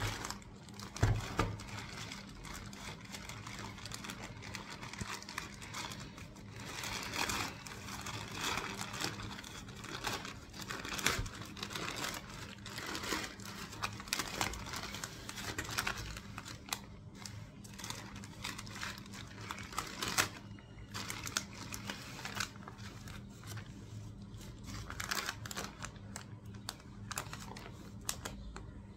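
Plastic polymailer bag being handled, torn open and crinkled by hands, with plastic product packets rustling as they are pulled out: irregular crackling and rustling throughout, with a dull thump about a second in.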